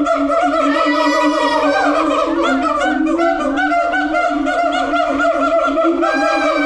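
Siamangs calling loudly: a dense run of rapid, repeated pitched hoots that overlap one another, with rising whoops about a second in and again near the end.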